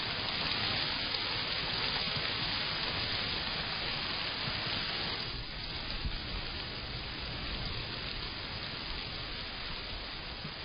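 Steady rain falling, heard through a Blink XT2 security camera's microphone.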